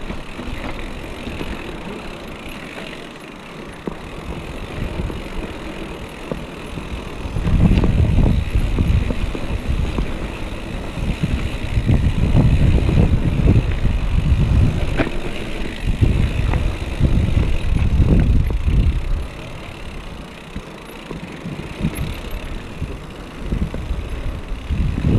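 Mountain bike ridden over a rough trail, recorded on a GoPro action camera: a low rumble and rattle of tyres and bike with wind on the microphone. It gets louder about a third of the way in, eases off, then picks up again near the end.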